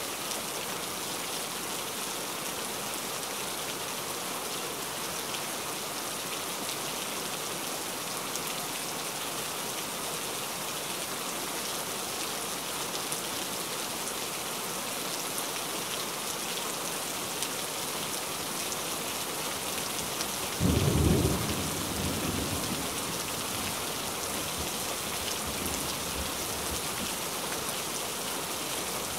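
Heavy rain falling steadily. About two-thirds of the way through, a sudden low clap of thunder, the loudest sound, rumbling away over the next few seconds.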